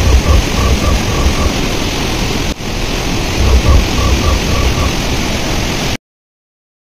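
Steady rush of water pouring over the overflowing dam, with uneven low rumbling under it. The sound stops dead about six seconds in.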